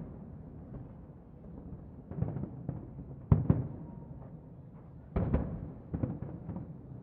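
Distant aerial firework shells bursting: a string of dull booms that ring on and echo, several in quick succession, the loudest about three seconds in and again just past five seconds.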